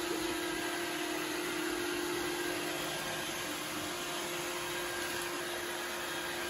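iRobot Roomba 614 robot vacuum cleaning a hardwood floor: a steady whir of its vacuum motor and brushes with a constant hum.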